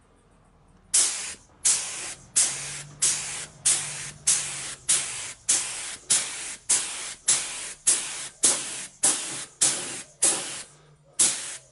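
Gravity-feed compressed-air paint spray gun laying a pass of base coat in short trigger pulls: about sixteen sharp bursts of hiss, roughly one and a half a second, each cutting off as the trigger is released, with a brief pause before the last one.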